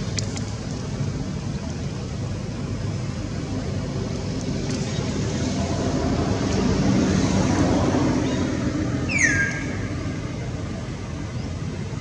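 Steady low outdoor rumble that swells for a few seconds past the middle. Just after nine seconds, one short high squeal falls in pitch.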